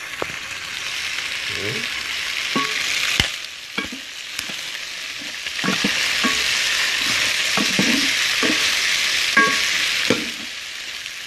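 Chicken pieces sizzling in a metal pan while a wooden spoon stirs them, with scattered knocks of the spoon against the pan. The sizzle gets louder about six seconds in and drops back near the end.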